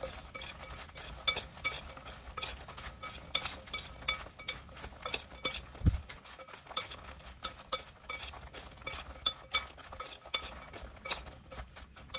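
A metal spoon stirs and tosses fried tilapia laab in a glass bowl, making irregular clinks and scrapes against the glass. A single dull thump comes about six seconds in.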